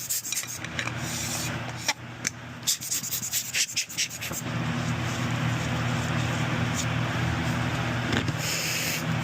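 Rubbing, scraping and small clicks of camera gear being handled and wiped during cleaning, followed from about halfway in by a steady low mechanical hum.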